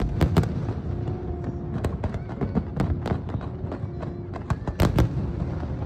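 Fireworks display: aerial shells bursting in a rapid, irregular series of sharp bangs and crackles. The loudest bursts come at the start and about five seconds in.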